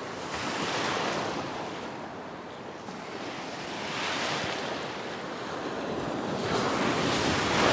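Ocean surf breaking and washing up a beach, rising in three surges a few seconds apart.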